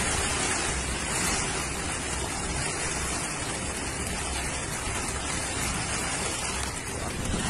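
Steady rushing hiss of heavy rain and flowing floodwater, with no tones or single strikes.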